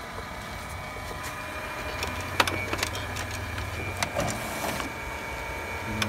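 HP Color LaserJet Pro M177fw colour laser printer running as it prints a supplies status report: a steady hum and whine, with a few sharp clicks in the middle.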